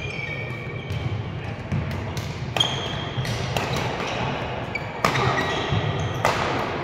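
Badminton rally: rackets striking the shuttlecock roughly once a second, sharp cracks, with shoes squeaking on the court floor between the hits.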